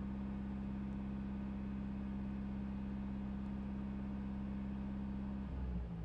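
Ford Transit diesel engine running steadily at raised revs during a static diesel particulate filter regeneration. Near the end its steady note breaks and the revs drop as the regeneration winds down.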